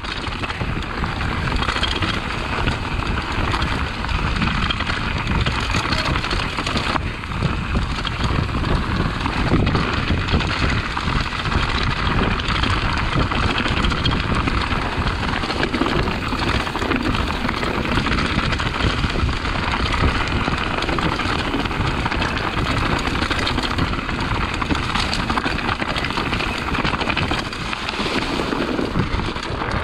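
Full-suspension mountain bike rolling fast over rocky dirt singletrack. The tyres give a steady rush of noise, and the frame, chain and suspension add a constant clatter of small knocks and rattles as it hits roots and rocks.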